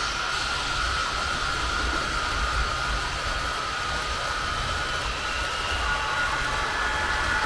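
H0-scale model freight train running on the layout: a steady whine over a low rumble of wheels on the track, with a couple of new whine tones joining near the end.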